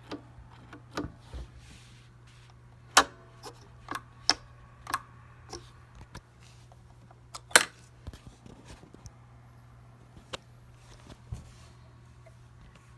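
Scattered clicks and knocks from a Bernina 1000 sewing machine's buttons, dials and levers being worked by hand, the sharpest one about seven and a half seconds in, over a steady low hum.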